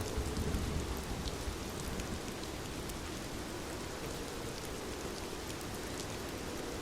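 Steady rain falling and pattering on a surface, with scattered individual drop ticks and a low rumble that eases slightly after the first second.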